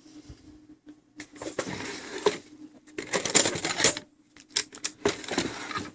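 Small metal clock parts being handled and rummaged through, with irregular clicks, rattles and rustling while the minute hand is picked out.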